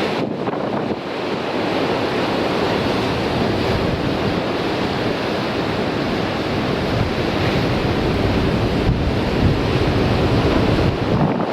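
Rough sea surf breaking and surging on a rocky shore in a strong wind, with the wind buffeting the microphone. The rush swells heavier and louder in the second half.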